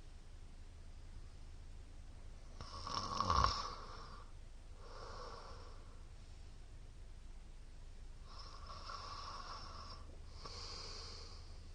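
A man snoring in his sleep: one loud snore about three seconds in, then softer breathy snores near the middle and toward the end, over a steady low hum.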